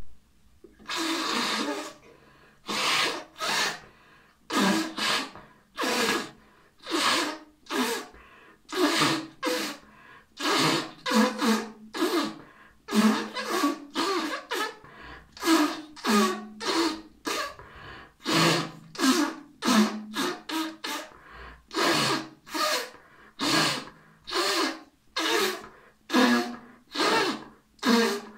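A man blowing his nose into a paper tissue again and again: one long blow about a second in, then a long run of short blows, often two in quick succession, a little more than one a second.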